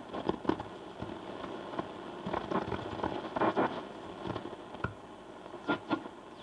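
Philips 461A valve radio on its shortwave band, tuned between stations: crackling static and irregular bursts of noise from its speaker as the dial is turned.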